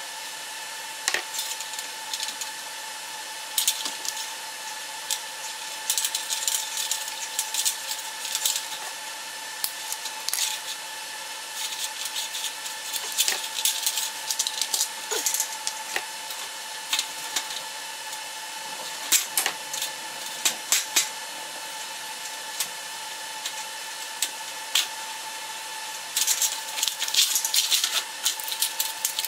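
Hands working on a sheet-metal fluorescent light fixture and its wiring: scattered clicks, taps and scrapes of wire and metal, busiest near the end as the fixture cover is handled. A steady thin high tone runs underneath.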